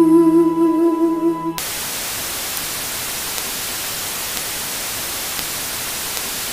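A held musical note with a vibrato cuts off abruptly about a second and a half in. A steady hiss of static noise takes over.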